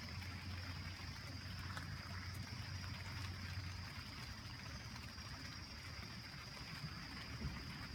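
Steady rush of flowing river water, with a constant high insect trill over it.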